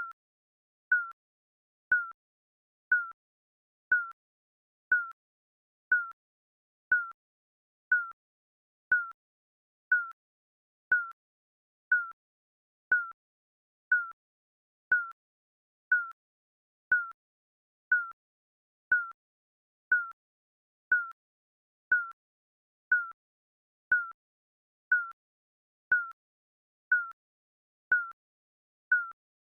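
Digital countdown timer sound effect beeping once a second, a short single-pitched beep on each tick of the countdown.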